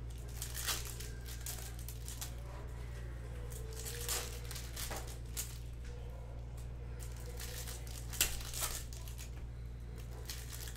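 Baseball trading-card pack wrappers being torn open and crinkled by hand: a string of short crackling rips, scattered irregularly, over a steady low hum.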